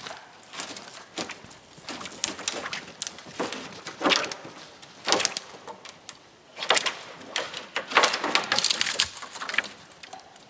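Footsteps crunching through snow and brush, with a long dead branch dragged and scraping through the snow and twigs, in irregular bursts of crunching and snapping.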